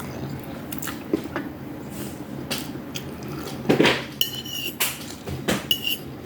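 Eating utensils clinking and scraping on dishware, with scattered sharp clicks, a louder knock just before four seconds in, and two brief high squeaks at about four and six seconds in.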